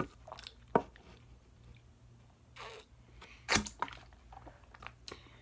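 Drinking from a plastic Gatorade bottle: a few short clicks and knocks from sipping and handling the bottle, with a short breathy exhale near the middle. The loudest knock comes about three and a half seconds in.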